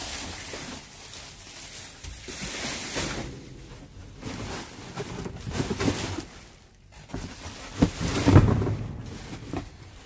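Cardboard boxes and plastic trash bags being shifted and rustled while rummaging in a dumpster, with rubbing and handling noise on the phone's microphone. A heavy low thump about eight seconds in is the loudest sound.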